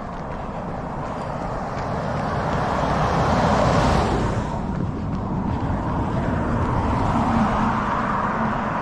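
A car driving past on the road, its tyre and engine noise swelling to a peak about four seconds in and then easing off.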